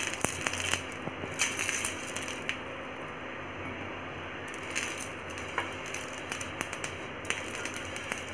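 Oil sizzling and crackling on a hot tawa as it is spread with a silicone brush, with a steady hiss and many small scattered pops.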